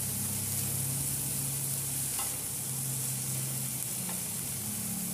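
Chopped vegetables (onion, peas, capsicum and tomato) sizzling in oil in a non-stick pan while being stirred with a wooden spatula, the tomatoes cooking down with salt. A steady low hum runs underneath, and a couple of faint spatula taps come about two and four seconds in.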